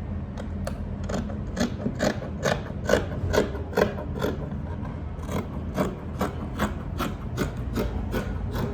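Fabric shears cutting through folded cloth along a paper pattern, a rhythmic snip about two or three times a second.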